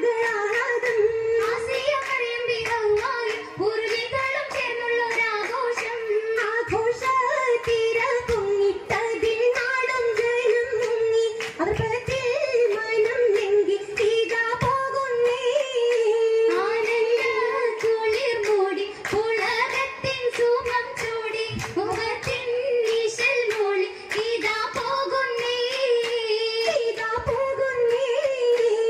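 A group of girls singing a Mappila song in unison through microphones, with the dancers' hand claps keeping the beat, as in an Oppana performance.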